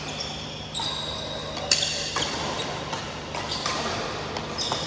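Badminton rally: racket strings striking a shuttlecock several times, with sharp hits spaced about a second apart and the loudest a little under two seconds in. Short high squeaks of shoes on the synthetic court mat come between the hits.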